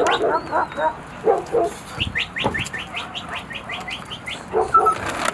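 A pack of stray dogs crowding around food, whining and yelping. About two seconds in comes a quick run of about a dozen short high chirps, each falling in pitch.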